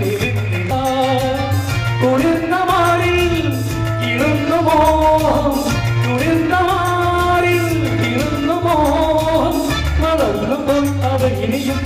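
A singer performing a Malayalam song with instrumental accompaniment: a wavering, held vocal melody over a steady pulsing bass beat.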